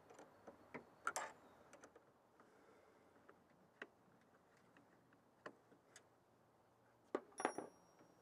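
Faint, scattered metallic clicks and taps of a wrench on the battery terminal bolts as the winch cables are fastened, with a quick run of clicks near the end.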